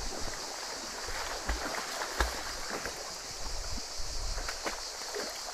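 Shallow creek water running over rocks, with splashing as a puppy paddles through it and a few sharper splashes and thumps.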